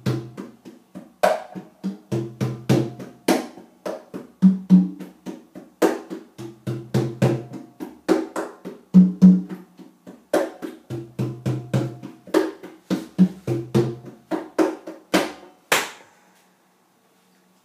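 A pair of congas, conga and tumba, played by hand in a steady rhythm of sharp strikes and short low ringing tones. The playing stops about sixteen seconds in.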